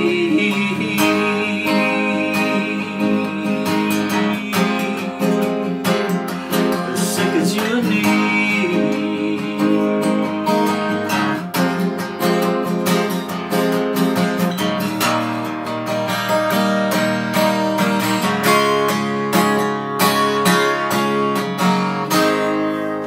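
Steel-string dreadnought acoustic guitar strummed in steady chords, an instrumental run after the last sung line. Near the end the strumming stops and the last chord rings and fades.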